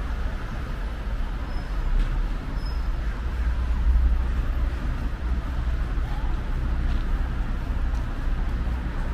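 City street ambience: a steady low rumble of road traffic that swells about four seconds in, as a vehicle passes close by.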